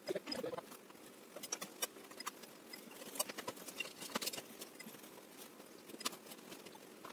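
Faint, irregular clicks and light scratches of a paintbrush and paper being handled, over a low hiss.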